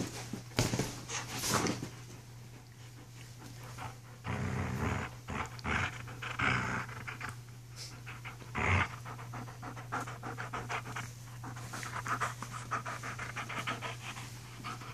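Young wolfdog panting rapidly and hard during rough play, with a few short, louder noises in between.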